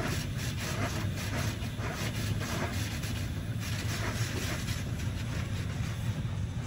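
HydroSpray Rainmaker touch-free car wash spraying water and soap against the car's windows and body, heard from inside the car as a steady hiss over a low hum.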